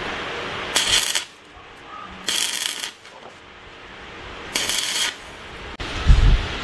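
Stick (arc) welding electrode tack-welding a steel roller chain onto a motorcycle sprocket: three short bursts of welding crackle, each about half a second long. Near the end a louder low thump takes over.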